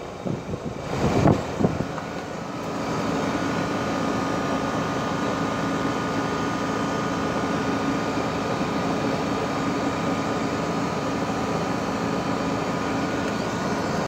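A 2012 Rheem 4-ton heat pump's outdoor unit running in cooling mode: the condenser fan blows steadily over a constant compressor hum with a faint high whine. A few irregular bumps come in the first two seconds, then the running sound holds level.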